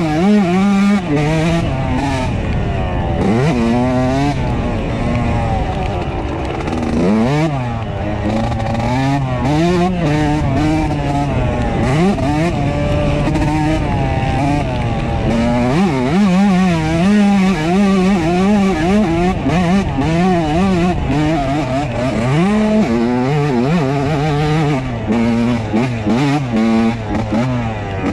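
A 2003 Yamaha YZ125's single-cylinder two-stroke engine under riding load, its pitch rising and falling again and again as the throttle is worked, with a sharp drop in revs every few seconds.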